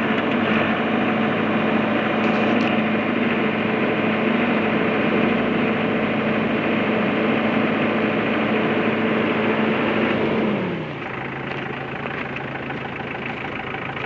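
Komatsu WB140-2N backhoe loader's diesel engine running steadily at raised revs, then slowing to a lower idle about ten and a half seconds in, falling in pitch and getting a little quieter.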